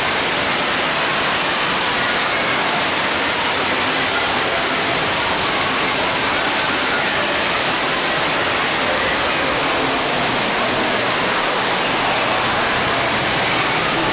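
Steady rush of falling, splashing water from an indoor water park's artificial rock waterfall, a loud even hiss that holds without a break.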